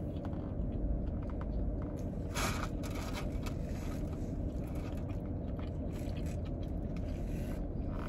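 A person biting and chewing a roast beef sandwich close to the microphone, with the paper wrapper rustling; a short louder rustle comes about two and a half seconds in. A steady low hum runs underneath.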